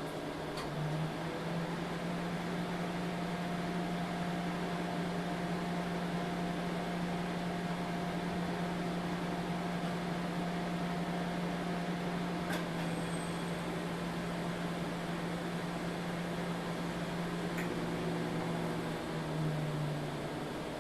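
Microwave oven running at half power: a steady hum with a faint higher tone, and a couple of small clicks in the second half.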